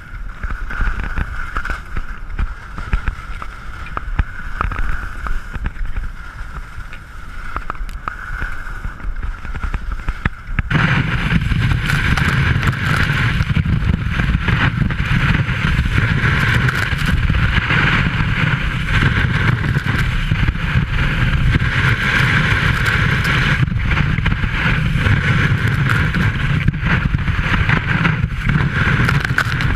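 Skis hissing and scraping through soft snow with wind rushing over the camera microphone during a fast downhill run. About ten seconds in the noise jumps abruptly louder and deeper, and stays that way.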